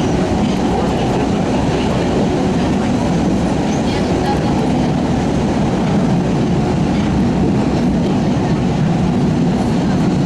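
CRRC 1400-series Orange Line subway car heard from inside while running at speed through the tunnel: a steady, loud rumble of wheels on rails and traction motors, with light rail clatter.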